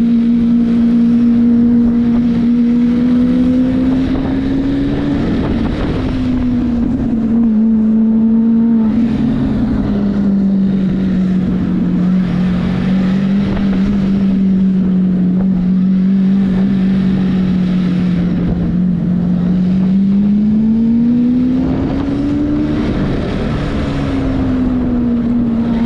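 A vehicle engine droning steadily on the move, its pitch rising about five seconds in and again near the end before dropping back, over steady road and wind noise.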